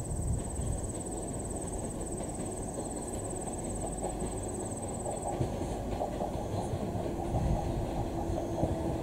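An electric commuter train runs slowly toward the platform with a steady low rumble and wheel clatter on the rails. About halfway through, a mid-pitched whine joins in as it draws nearer. A high, fast-pulsing trill is heard until about halfway through.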